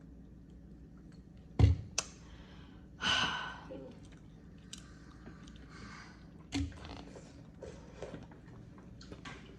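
Food containers and lids being handled and set down on a table after the meal: a few sharp knocks, the loudest about one and a half seconds in and again about six and a half seconds in, with a short rustling burst about three seconds in.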